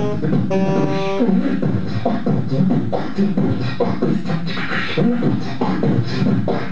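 Beatboxing into a microphone: a continuous rhythm of mouth-made drum sounds. A saxophone holds one note about half a second in, ending after about a second in; beatboxing then carries on mostly alone.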